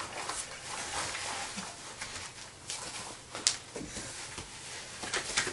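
Faint rustling and handling of clothing and a small plastic toy basketball hoop, with a sharp click about three and a half seconds in.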